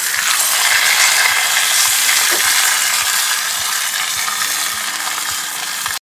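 Club steak searing in clarified butter on a hot griddle plate, a loud steady sizzle that starts as the meat goes down. It cuts off suddenly near the end.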